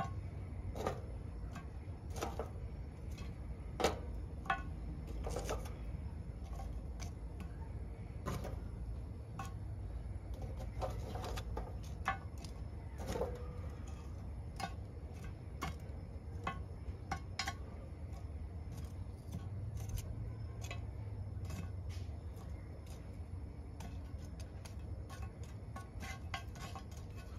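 Metal tongs clinking and scraping against lit charcoal briquettes on a cast-iron Dutch oven lid as the coals are pushed to the outer edge: scattered, irregular light clicks and taps.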